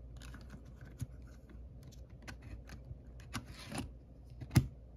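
Small plastic clicks and rattles as a cassette tape is fitted into the open door of a Sony F102 Walkman cassette player, with a brief scrape, then one loud snap near the end as the cassette door is pressed shut and latches.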